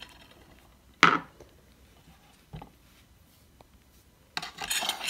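Handling noises of a halved guava over a wooden cutting board: a soft knock about a second in, a faint tap, then a short scraping rustle near the end.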